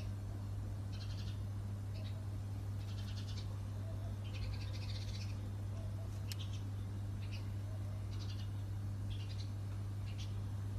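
Short high-pitched animal calls, about one a second, over a steady low hum; a single sharp click about six seconds in.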